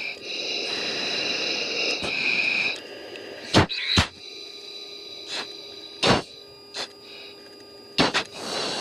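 Aircrew breathing hard through oxygen masks over a hot intercom during the anti-G straining manoeuvre in a high-G F-16 turn: a long hissing breath at first, then short sharp exhale-and-inhale gasps every couple of seconds.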